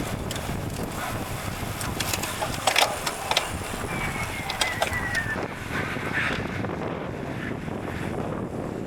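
Wind rushing over the microphone of a moving bicycle, steady throughout. A few sharp clicks come around the middle, along with a short, high, falling squeal.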